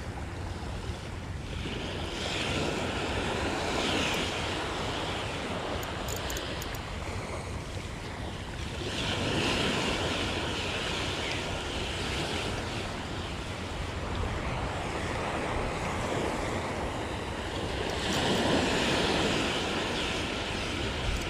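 Small waves washing in on a sandy beach, three swells of surf a few seconds apart, with wind buffeting the microphone.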